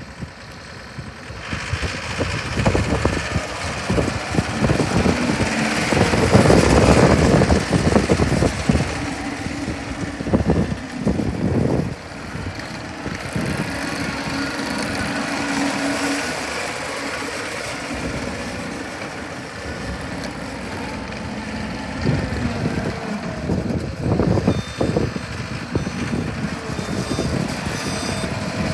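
John Deere 323E skid steer's diesel engine running, growing louder about a second and a half in and rising and falling after that, loudest around six to eight seconds in.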